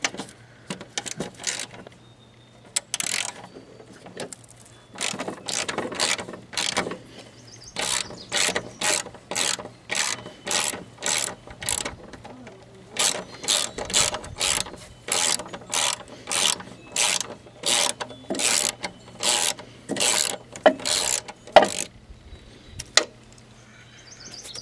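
Socket ratchet with a 13 mm socket being cranked back and forth on a mower engine bolt, clicking in runs of about two strokes a second with short pauses between runs.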